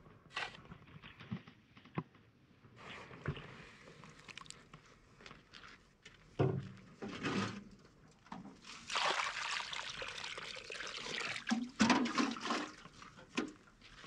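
Water being poured and splashing in several separate bursts, the longest lasting a couple of seconds in the second half.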